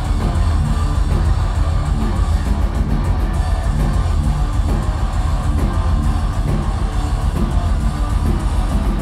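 Live heavy metal band playing an instrumental passage: distorted electric guitars over drums and bass. It is loud and steady, heard from the audience with a heavy low end.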